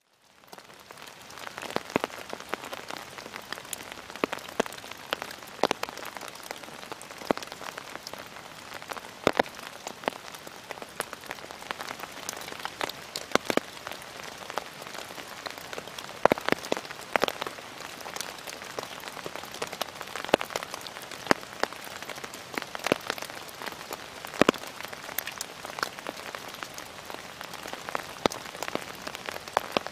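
Rain falling, fading in at the start: a steady light hiss with many separate drops tapping sharply.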